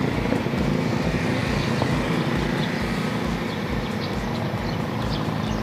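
A motor vehicle engine running steadily with a low, regular throb.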